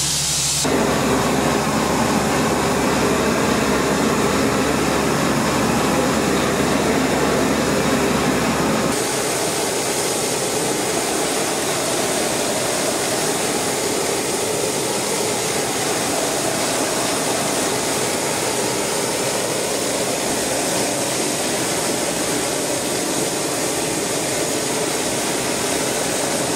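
Flame-spray powder-coating gun running, giving a steady rushing hiss from its burning gas jet. The sound fills out within the first second, and its deepest rumble drops away abruptly about nine seconds in.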